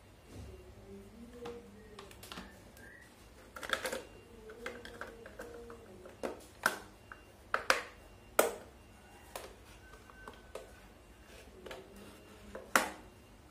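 Plastic clicks and knocks from a car side mirror's housing and base cover being handled and snapped back together during reassembly: a handful of sharp, irregularly spaced clicks, the loudest near the end.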